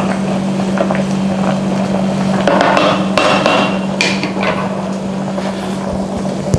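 A stainless steel pot of chicken stock with potatoes, carrot and onion at a hard rolling boil, bubbling and churning, over a steady low hum.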